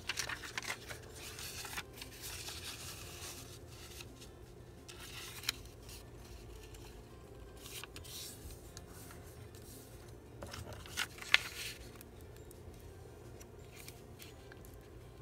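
Paper and cardstock being slid across a tabletop, folded and creased by hand, with a couple of sharp taps partway through.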